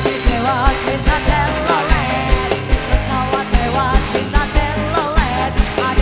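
Live dangdut band: a woman sings a wavering, ornamented melody with vibrato over keyboard, electric guitar and a steady drum beat of about two to three hits a second.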